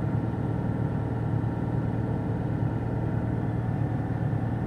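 Car engine idling steadily, with no revving.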